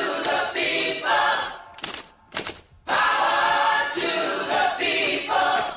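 Several voices singing a short a cappella intro jingle: two sung phrases with a brief break between them, about two seconds in.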